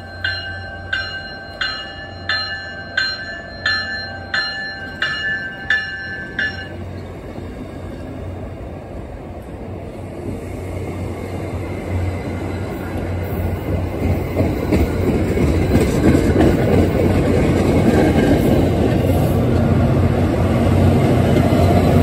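MBTA commuter rail push-pull train passing through a station. Its bell rings about twice a second and stops after about six seconds. Then the rumble of wheels on rails builds steadily louder as the coaches go by, with the diesel locomotive pushing at the rear coming close near the end.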